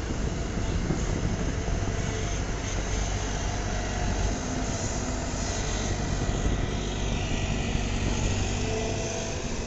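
JCB tracked excavator's diesel engine running steadily under load as the machine swings its boom and bucket, a constant drone with no break.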